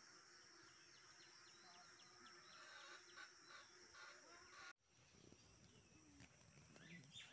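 Near silence: faint outdoor ambience with a few faint bird chirps, broken by a brief dropout a little under five seconds in.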